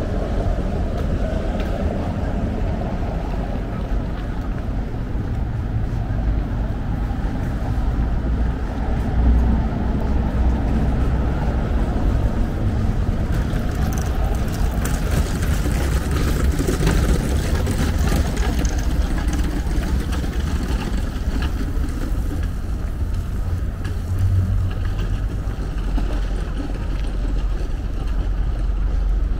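Steady city street ambience: a continuous low traffic rumble with general urban noise and no single event standing out.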